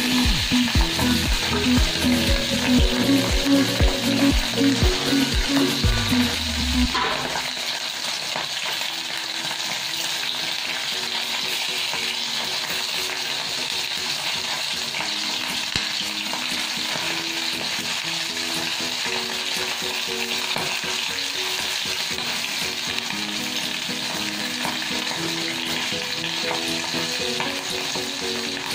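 Pieces of cá xạo fish frying in hot oil and garlic in a stainless steel pot, a steady sizzle as they are turned with chopsticks. For the first seven seconds or so, background music with a steady beat plays over it; after that the music is faint.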